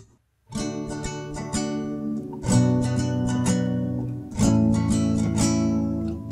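Acoustic guitar playing chords in D major in 3/4 time, starting about half a second in, with louder strummed chords about every two seconds.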